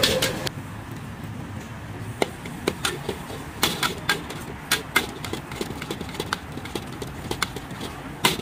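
Metal spatula clinking and scraping against a steel wok while rice is stir-fried over a gas burner, in sharp, irregular strikes about once or twice a second.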